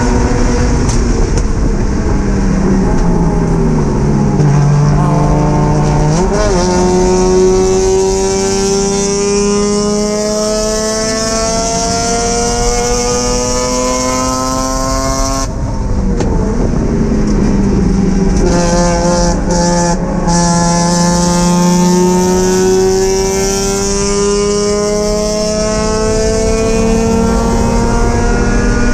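Mazda MX-5 race car's four-cylinder engine heard from inside the cabin under hard acceleration. The revs dip and pick up in the first few seconds, then climb slowly through a long pull. About halfway through they drop sharply at an upshift and then climb steadily again, with wind and road noise beneath.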